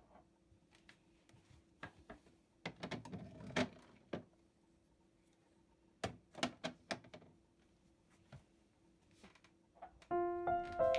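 Quiet handling sounds, a few clicks, knocks and rustles, over a faint steady hum; about a second before the end, piano music starts and is the loudest sound.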